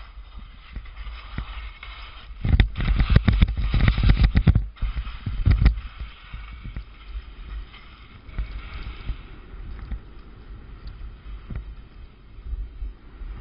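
Touring skis sliding and scraping over snow, with a loud stretch of clattering and knocking from about two and a half to five seconds in, then a quieter steady hiss of the skis running.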